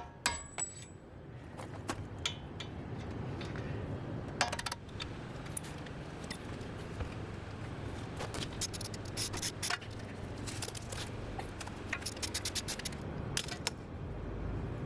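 Hand tools working on a car's front strut bolts: a hammer blow on a steel pin punch rings out just after the start, followed by scattered metallic clinks, taps and scrapes, with clusters of quick clicks in the second half.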